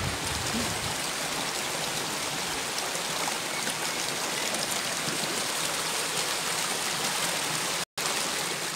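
Steady rush of flowing stream water. The sound cuts out completely for a moment near the end.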